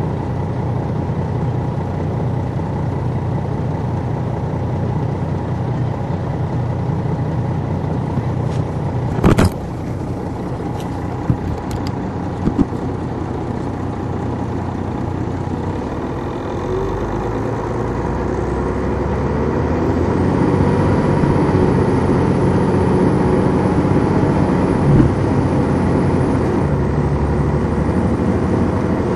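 Detroit Diesel Series 60 inline-six diesel of a 2002 MCI D4000 coach running, heard from on board while the bus is under way, with a sharp knock about nine seconds in and a few lighter clicks after it. From about halfway the engine pulls harder and grows louder, and a thin high whine comes in over it.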